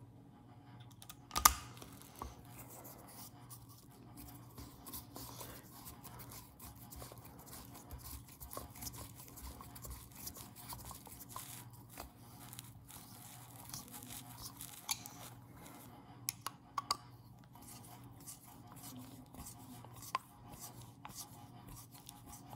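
2.5 mm hex driver turning bolts into a small RC wheel while the rubber tire is squeezed down to seat it: faint scratching and rubbing with scattered small clicks, and one sharp click about a second and a half in.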